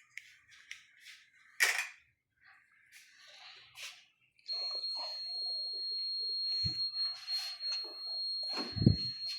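Mindray SV600 ventilator sounding a steady high-pitched alarm tone that comes on about halfway through as the machine is restarted, with handling clicks and knocks before it and a couple of dull thumps near the end.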